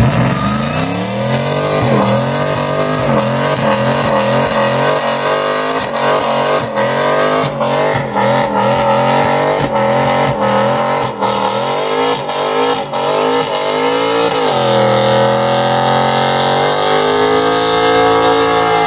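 Pickup truck doing a burnout: its engine is held at high revs, the pitch surging up and down over and over as the rear tyres spin and squeal. About fourteen seconds in the revs dip, then climb and hold steady and high.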